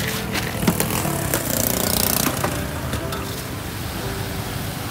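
Hot oil in a wok sizzling and bubbling hard as a batch of insects is deep-fried, the sizzle loudest from about a second and a half in. A steady engine drone runs underneath.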